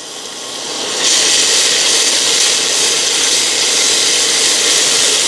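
Green onion, garlic and dill sizzling in hot olive oil in a pan: a steady, high hiss that builds over the first second and then holds.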